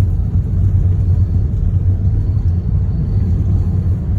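Steady low rumble of a car driving, heard from inside the cabin: engine and road noise with no changes.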